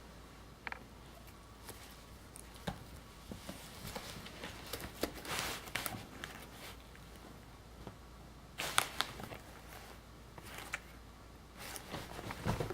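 A pet scrabbling under a bed during zoomies: scattered light knocks and clicks of paws and claws, with brief bursts of rustling and scratching, the busiest about five and nine seconds in, and louder thumps starting near the end.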